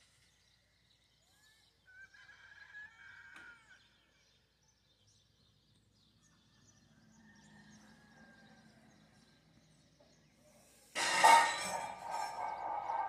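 A few faint bird chirps in a mostly quiet stretch. About eleven seconds in, a sudden loud, held call starts, typical of a rooster crowing close by.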